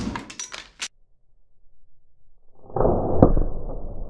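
Bolt from an 80 lb Alligator pistol crossbow striking safety glasses on a foam target: a sharp crack, then a short rattle of clicks from pieces of the glasses breaking away, all within the first second. About three seconds in, a stretch of muffled rumbling noise begins, with one sharp knock.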